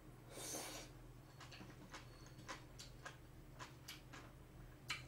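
Close-miked eating: a short slurp as a mouthful of bean sprouts in spicy sauce goes in, then soft, irregular wet chewing clicks, a few a second, with the mouth closed.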